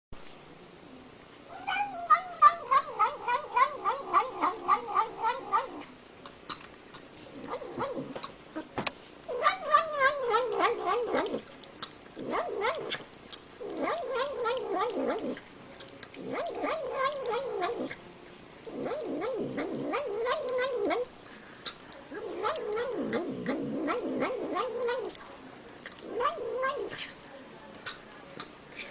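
Domestic cat making silly noises while it eats: a string of drawn-out, wavering calls, each one to four seconds long, with short pauses between.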